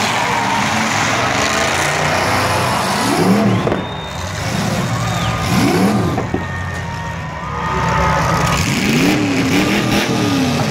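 Demolition derby cars' engines running together in the arena, with several revs rising and falling, about three, six and nine seconds in.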